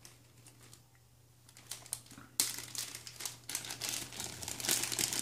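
Clear plastic zip-lock bag crinkling as it is handled. It is nearly quiet at first, then irregular crackling starts about a second and a half in and turns louder and busier from about two and a half seconds.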